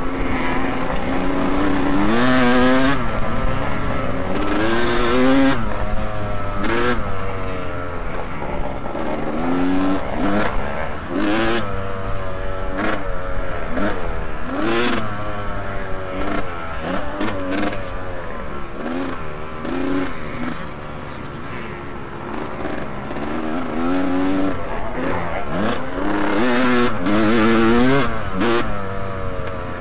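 Motocross bike engines racing on the track, the engine note revving up and dropping back again and again as the throttle is worked through the corners and gears.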